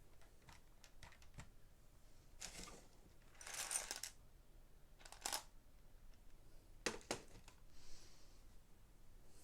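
Plastic Lego Technic pieces being handled: light clicks and rattles, with two short stretches of rummaging or rustling through parts.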